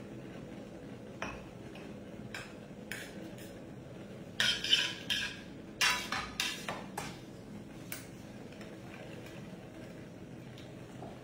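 Carbonara being plated from a pan: a metal utensil clinking and scraping against the pan and plate, with a few light clicks at first and then a run of louder scrapes and clinks in the middle.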